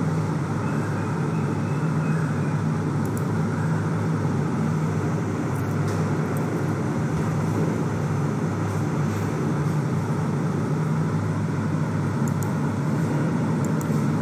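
Steady background drone: a constant low hum with an even rushing noise over it and no speech.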